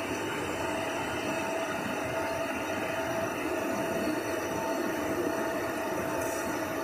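Steady whir and hum of a running facial-tissue packing machine line and its belt conveyors, with a constant whine held over the mechanical noise.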